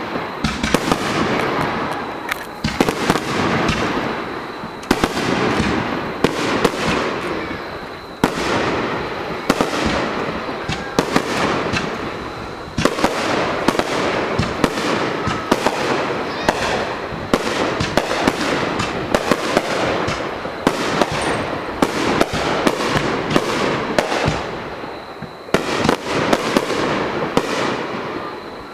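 Aerial fireworks bursting in rapid succession: dense volleys of sharp bangs and crackling that swell and ease in waves every couple of seconds.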